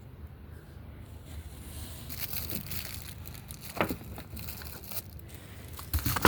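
Rustling and crinkling from something being handled, with a sharp knock about four seconds in and another near the end.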